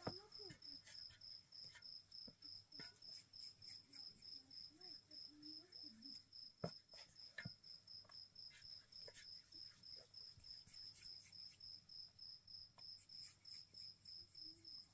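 A faint insect chirping steadily in an even high-pitched pulse, about four to five chirps a second. A single sharp click about six and a half seconds in, with faint distant voices now and then.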